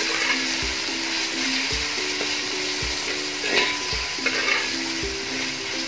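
Sliced onions, green chillies and ginger-garlic paste sizzling in hot oil in an aluminium kadai while a ladle stirs them, with a couple of scrapes of the ladle against the pan near the middle. Soft background music with a steady beat plays underneath.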